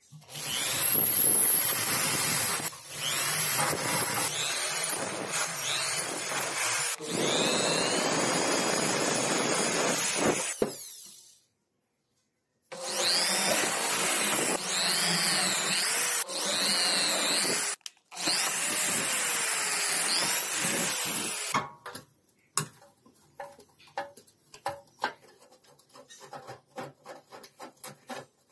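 A handheld power tool running under load in two long runs, its pitch dipping and rising as it is pressed against the work, with a short break between them; then scattered light taps and clicks.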